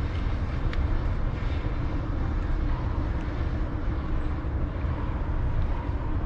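Wind buffeting the microphone: a steady, uneven low rumble with a fainter hiss above it.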